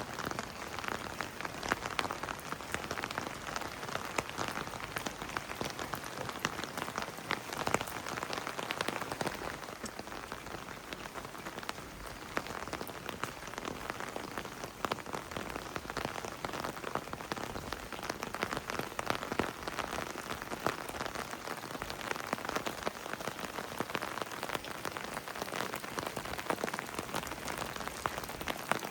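Heavy rain falling steadily, with many separate close drop hits over a continuous wash.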